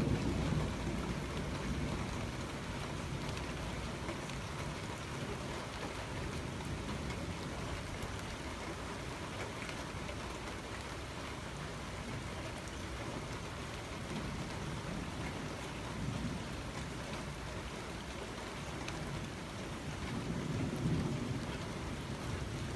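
Steady rain during a thunderstorm. A low roll of thunder dies away in the first second or two, and fainter rumbles of thunder swell up twice, about two-thirds of the way through and again near the end.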